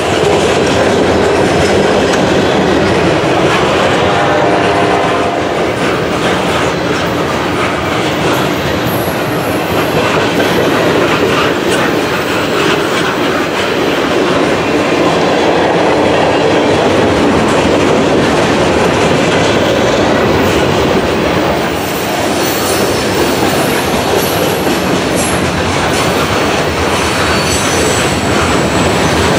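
Freight train rolling past at close range: a steady rumble of steel wheels with clickety-clack over the rail joints as the freight cars go by. Thin, high wheel squeal comes in faintly over the second half.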